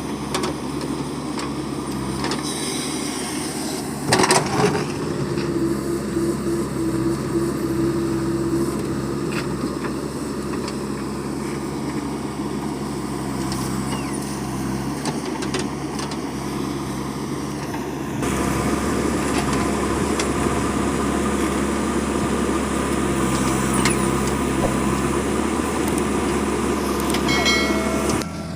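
Backhoe loader's diesel engine running steadily while digging and loading mud, with a sharp loud knock about four seconds in. From about two-thirds of the way through the engine runs louder and harder, as under load, and a few short high tones sound near the end.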